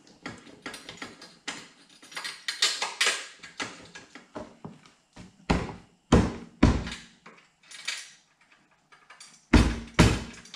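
A leather motorcycle saddlebag being pushed and worked into place against the rear fender and its mount: rustling and scraping, broken by heavy knocks and thumps, three close together about halfway through and two more near the end.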